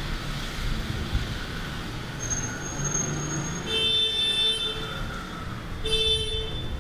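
Street traffic ambience with a steady wash of noise; a vehicle horn honks twice, once about four seconds in and again about six seconds in.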